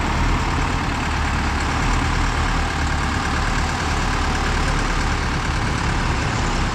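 Steady rumble of a heavy vehicle's engine with road noise, low and unbroken.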